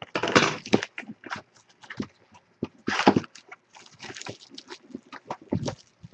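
Packaging of a sports trading-card box being opened: plastic wrap and foil crinkling and tearing in short, irregular bursts, loudest about half a second in and again near three seconds.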